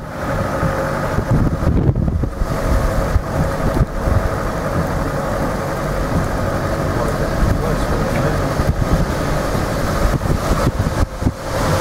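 Four-wheel-drive vehicle driving with its window down: steady engine and road rumble with wind buffeting the microphone.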